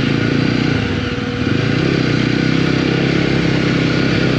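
Motorcycle engine running as the bike is ridden, easing off briefly a little after a second in and then picking up again.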